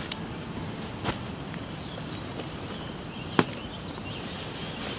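Camping gear being handled in and out of a bicycle cargo trailer's plastic crate: a few sharp knocks and thuds, the loudest about three and a half seconds in.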